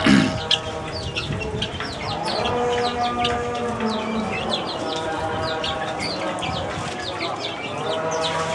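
Aseel chickens with chicks peeping: a fast, continuous stream of short, high, falling peeps, over drawn-out steady tones in the background. A sharp knock sounds right at the start.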